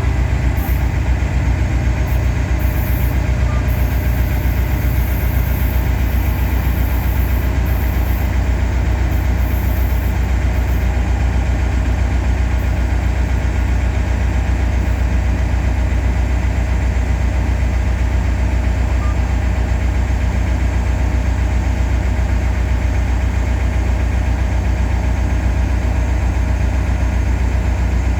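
Caltrain locomotive's diesel engine idling, a steady deep hum that does not change.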